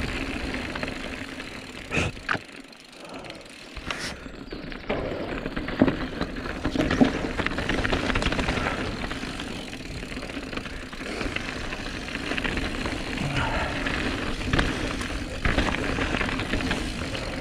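Calibre Sentry mountain bike ridden along a dirt trail: a steady rush of tyre and wind noise, with sharp knocks and rattles now and then as the bike hits bumps.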